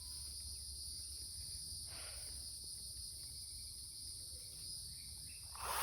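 A steady, high-pitched drone of insects. Just before the end, a chainsaw starts up loudly.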